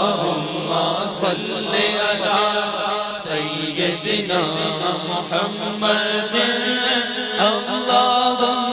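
Chanted vocal music: a voice singing a gliding melody over a steady held drone.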